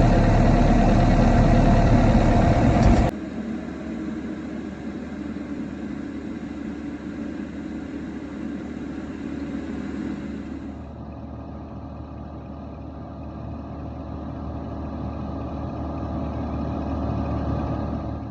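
CAT 305 mini excavator's diesel engine idling steadily after a coolant flush and refill, run to purge air from the cooling system. Its level drops sharply about three seconds in and it runs on quieter.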